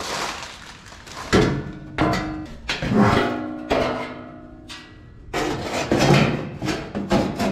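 Stamped steel replacement floor pan section clanging and scraping against the car's bare floor as it is set into place, with about eight knocks, each leaving a ringing metallic tone.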